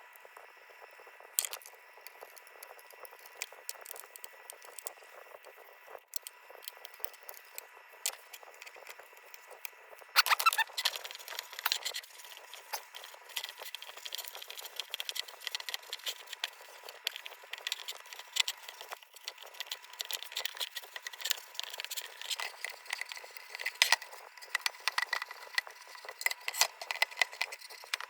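Small metal parts of a kerosene lantern being handled and worked at a bench: irregular clicks, taps, light scrapes and rattles, busier from about ten seconds in.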